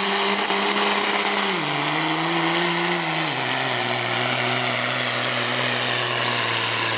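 Dodge Ram pickup's Cummins turbo-diesel engine running at full throttle while pulling a weight sled. Its note drops in two steps, about one and a half and about three seconds in, then holds steady under load.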